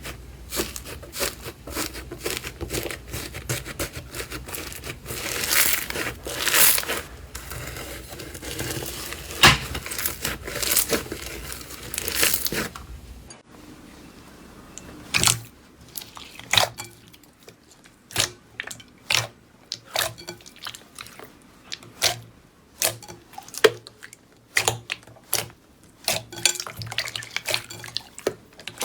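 Slime being squeezed and worked by hand, crackling and crunching densely at first. After a cut about 13 seconds in, it gives sparser single wet pops and clicks.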